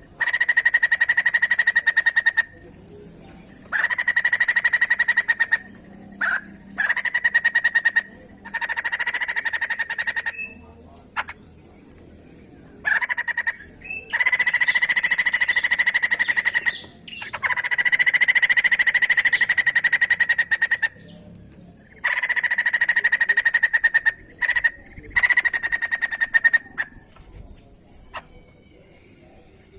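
White-crested laughingthrush calling in repeated bursts of rapid, buzzy chatter, each one to three seconds long with short pauses between.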